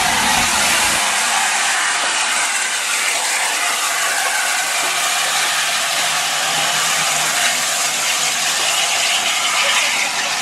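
LNER Class A4 steam locomotive No. 60007 rolling slowly past with a steady hiss of escaping steam, its Pullman carriages following.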